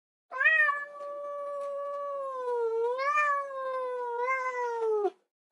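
A cat giving one long meow of about five seconds. It holds a fairly steady pitch, rises briefly a little past the middle, and sags as it stops.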